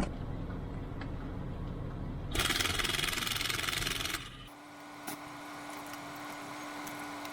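Vehicle engine running with a low rumble, then switched off about four and a half seconds in. A loud, even hiss sounds for about two seconds just before the engine stops, and after that only a faint steady hum and hiss remain.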